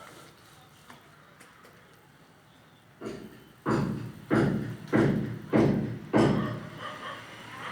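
Footsteps: six heavy thuds at an even walking pace, starting about three seconds in after a quiet stretch.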